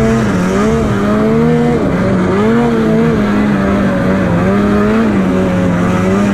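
Snowmobile engine running hard, its pitch rising and falling with the throttle.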